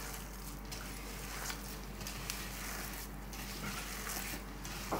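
A hand squishing and kneading a wet, coarsely ground chana and mash dal batter in a bowl, a soft gritty squelching that keeps on without pause.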